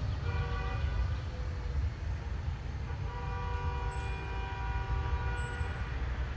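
A horn sounding twice, a short blast then a long one of about three seconds, over a steady low rumble.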